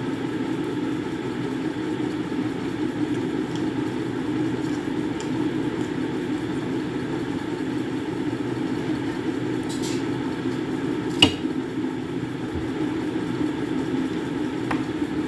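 Steady low background hum, with one sharp click about eleven seconds in.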